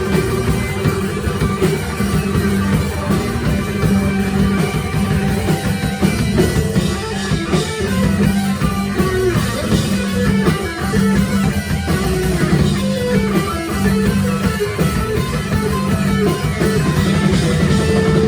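Four-piece rock band playing live: electric guitar and drum kit, loud and continuous throughout.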